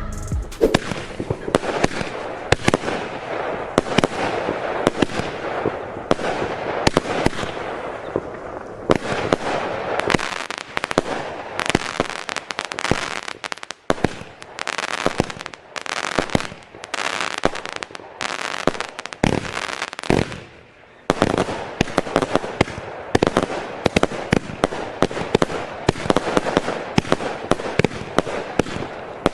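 Consumer fireworks going off: a dense run of sharp bangs over continuous crackling, with brief lulls about 14 and 21 seconds in.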